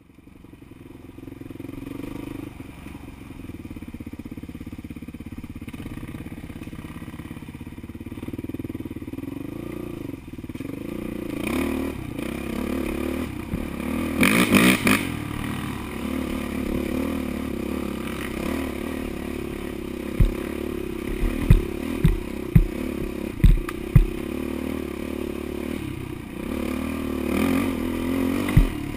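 Dirt bike engine running steadily along a rough trail, heard from a helmet camera. It revs up briefly about halfway through. Several sharp low thumps from the bike hitting bumps come in the last third.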